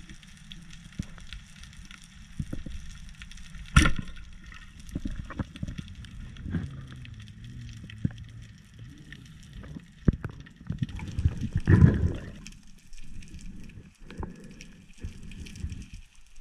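Underwater recording of a Cobra 90 speargun firing: a single sharp crack about four seconds in. After it come scattered knocks and a louder low rushing surge near twelve seconds, as the shaft with a speared bream is hauled in.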